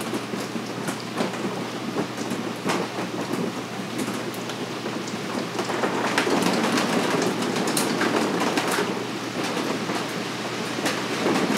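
A steady rain-like patter, thick with scattered sharp ticks, growing a little louder about halfway through.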